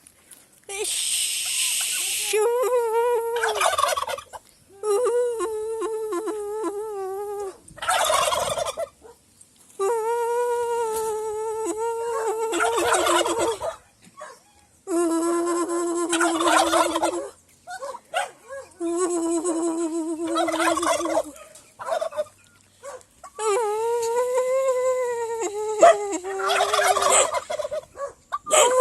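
Domestic turkeys gobbling again and again, in rattling bursts of a second or two. They alternate with wavering, held, pitched calls of similar length, the whistled call the keeper uses to set the turkeys answering.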